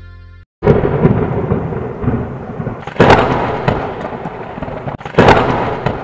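A held music chord fades and cuts off, then three loud thunderclaps with rumbling follow: one just under a second in, one about three seconds in and one just after five seconds, each fading before the next.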